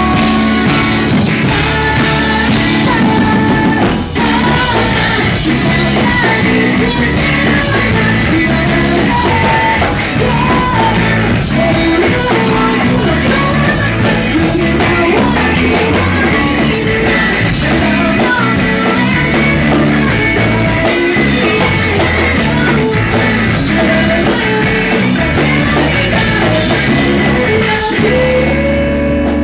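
A live math-rock band playing loud and continuously: electric guitars, electric bass and drum kit. It breaks off briefly about four seconds in.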